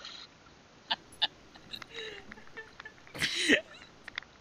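A person's voice: one short, loud exclamation with a falling pitch about three seconds in, with a few faint clicks before it.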